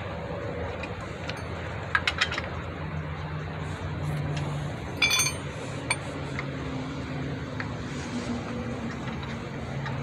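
Lug nuts being spun by hand onto a car wheel's studs: a few light metal clicks about two seconds in and a brighter ringing clink of metal on metal about five seconds in, over a steady low hum.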